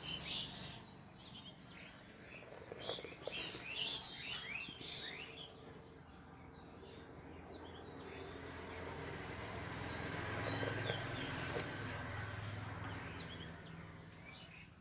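Small birds chirping and twittering in short rising and falling calls. Under them runs a low hum that swells in the middle and fades near the end.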